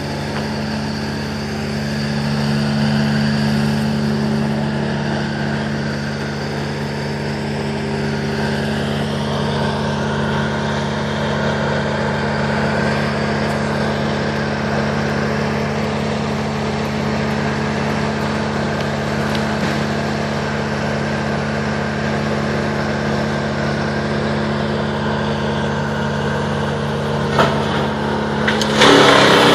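A large engine running steadily at constant speed. Near the end, louder rough noise breaks in over it.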